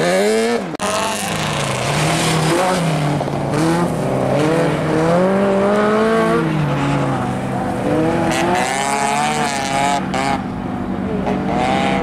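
Several ice-racing cars in turn, each engine revving up and falling back again and again as the car slides through snowy corners. There is a sudden break about a second in, where one car's sound cuts to another's.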